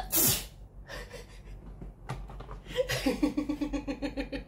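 A woman laughing: a sharp burst of breath at the start, then a run of quick, rhythmic ha-ha pulses from about three seconds in.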